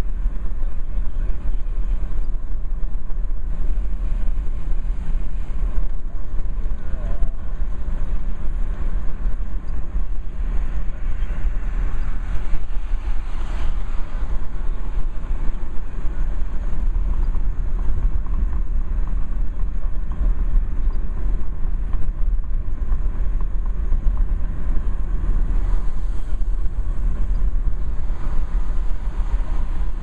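Road and engine noise heard inside a moving car's cabin: a steady low rumble.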